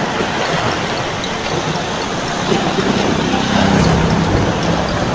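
Heavy rain pouring steadily onto a flooded street, a dense, even hiss. A low rumble swells under it about three and a half seconds in.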